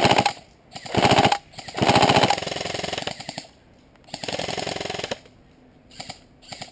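Airsoft rifles firing bursts of fully automatic fire, a rapid even rattle. There are about four bursts, the longest about a second and a half, then two brief faint ones near the end.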